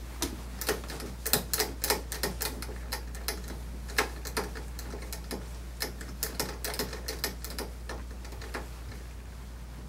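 A run of irregular sharp clicks and taps while a wet toy poodle is rubbed with a towel on a wooden bench, about two to three a second, thinning out and stopping near the end. A steady low hum runs underneath.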